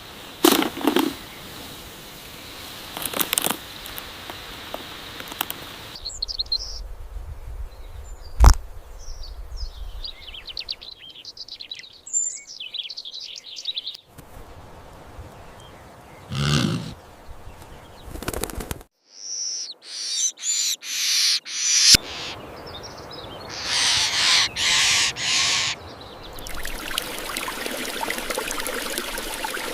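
Birds chirping, with one sharp knock partway through. Later come several short bursts of noise in quick groups, and a steady hiss near the end.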